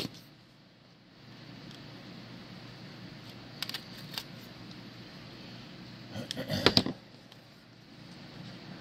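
A small box being opened and handled by hand: a few light clicks and taps, then a louder clatter of handling about two-thirds of the way in, over a steady low room hum.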